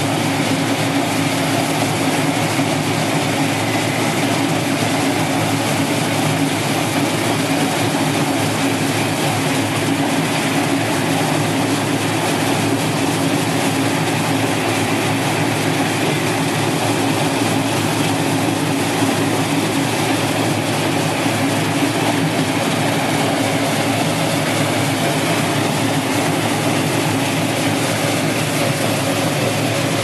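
QX-608 brush-roller potato peeling and washing machine running: a steady mechanical drone from its 0.75 kW motor and six rotating brush rollers, mixed with potatoes tumbling and knocking over the brushes under a water spray.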